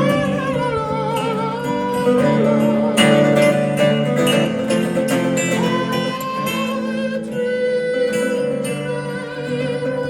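Acoustic bluegrass band playing, with plucked guitar and other string instruments under a lead melody played or sung with vibrato.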